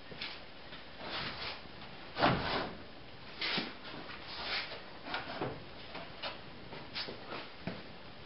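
Scattered wooden knocks, taps and scrapes as 2x4 boards are handled and shifted under a raised truck topper, with the loudest knock about two seconds in.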